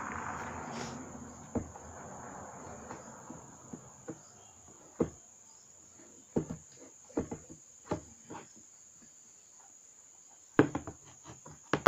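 Scattered clicks and knocks of objects being handled, after a hiss that fades over the first few seconds. The knocks come more thickly near the end. A steady high-pitched whine runs underneath.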